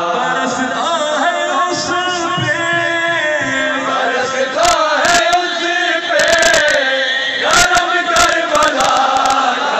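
Male reciter chanting a devotional recitation in a strong, sustained singing voice through a handheld microphone and loudspeakers. Clusters of sharp percussive hits come in about halfway through and again later.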